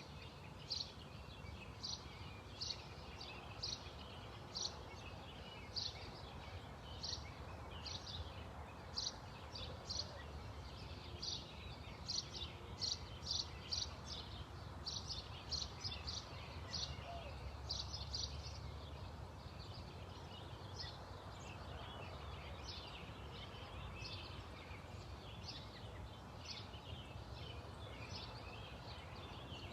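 A small bird chirping over and over, short high chirps about one to two a second and most frequent around the middle, over a steady low rumble.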